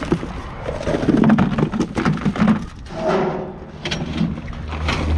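Rummaging in a metal dumpster: cardboard boxes and trash being handled, with rustling, scraping and repeated knocks against the bin, over a low rumble.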